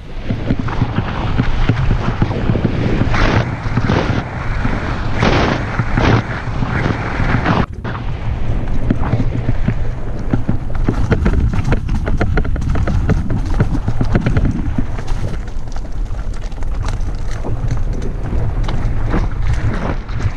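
Mountain bike riding fast over a rough trail: tyres rolling and crunching over the ground, with frequent sharp clicks, knocks and rattles from the bike. Heavy wind buffets the microphone, giving a steady low rumble.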